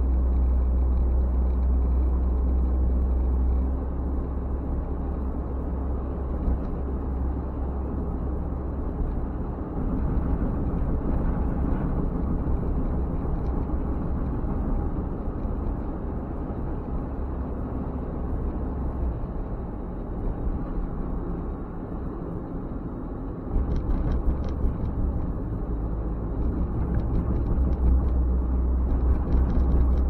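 Steady low rumble of a car driving along a road, engine and tyre noise together, easing a little about four seconds in and swelling again near the end.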